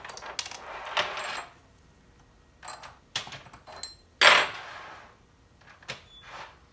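Metal tools and chainsaw parts clinking and clattering as they are handled and set down on a workbench, with a louder knock about four seconds in.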